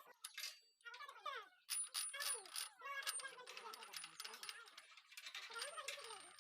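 Steel gearbox parts of a power tiller clinking, rattling and scraping against each other as a shifting fork is worked into place, many short irregular metallic clicks.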